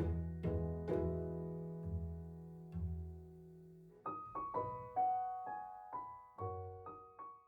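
Background piano music: sustained low chords, then a lighter run of short, higher notes from about four seconds in, fading out at the end.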